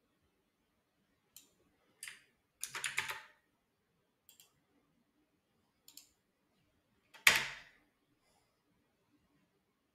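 Computer keyboard and mouse clicks: a few scattered single clicks, a short quick run of keystrokes about three seconds in, and one harder key strike about seven seconds in.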